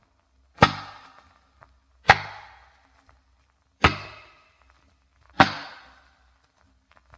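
A mammoth femur struck as a percussion instrument: four blows about a second and a half apart, each a sharp knock with a short, dying ring.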